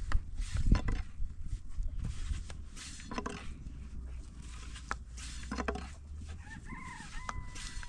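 Chickens clucking, with a few short, sharp knocks in between and a pitched call near the end.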